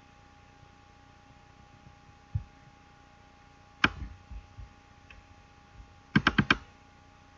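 Computer mouse clicks over a faint steady hum: a soft click about a third of the way in, a sharper one about halfway, and a quick run of four near the end.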